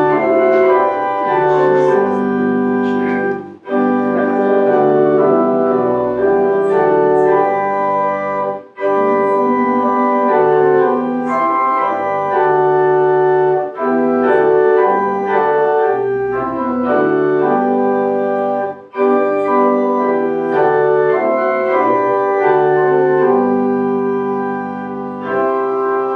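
Church organ playing a hymn verse in sustained chords, with a short break between phrases about every five seconds.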